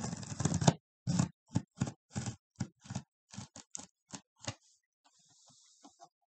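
Cardboard shipping box and its packing being opened by hand: a run of short knocks, snaps and scrapes, about three a second, then a brief soft hiss about five seconds in.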